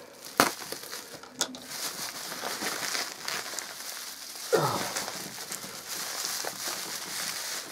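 Plastic bubble wrap crinkling and rustling as hands pull, press and cut at it, with a sharp click about half a second in.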